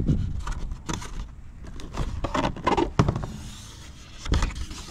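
Cardboard box and plastic wrap being handled: irregular rustling and scraping with a few dull thumps, the loudest about three seconds in and again near the end.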